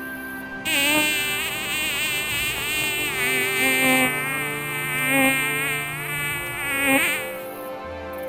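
A flying insect buzzing for about six seconds, its pitch wavering up and down. It starts about a second in and stops near the end.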